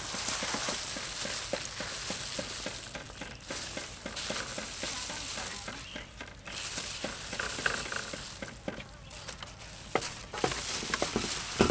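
Thin plastic gloves crinkling and shredded green papaya rustling and squelching as it is mixed and squeezed by hand in a steel bowl, with two brief lulls and a couple of sharp taps near the end.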